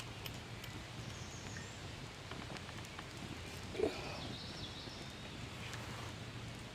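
Quiet outdoor background with a faint steady hum and a few faint distant bird chirps, and one short low sound about four seconds in.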